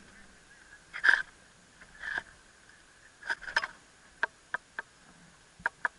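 A paraglider pilot handling his harness and gear just after landing: a couple of short breathy noises, then a series of sharp small clicks and rustles.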